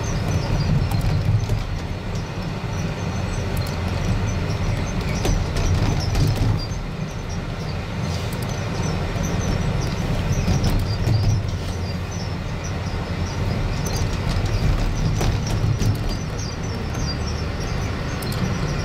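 Amusement-park monorail ride car running along its elevated track, heard from on board: a steady low rumble with scattered light clicks.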